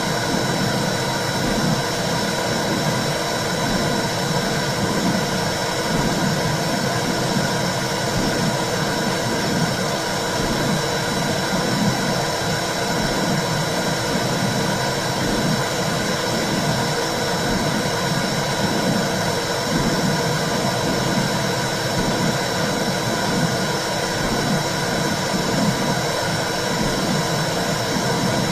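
Womb sound for soothing a baby: a steady whooshing noise with a low, rhythmic pulse running through it like a heartbeat.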